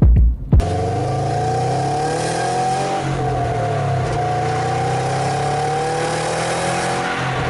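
A couple of low thumps, then, from about half a second in, a 2017 Subaru WRX STI's turbocharged flat-four engine running at a fairly steady speed, its pitch drifting slightly up and down.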